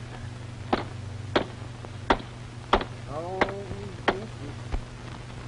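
Seven sharp knocks in an even rhythm, about one every two-thirds of a second, with a brief voice sound near the middle. A steady low hum runs underneath.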